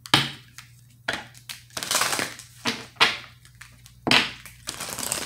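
Tarot cards being shuffled and handled: a run of irregular sharp slaps and papery rustles, about seven in all.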